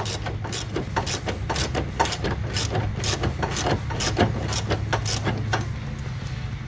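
Socket ratchet clicking in an even rhythm, about four clicks a second, as a hinge bolt's nut is tightened. The clicking dies away about five and a half seconds in.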